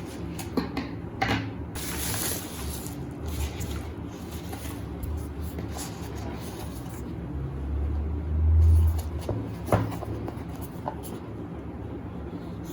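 Objects being handled: scattered light clicks and knocks, a rustle about two seconds in, and a dull low thump near the nine-second mark.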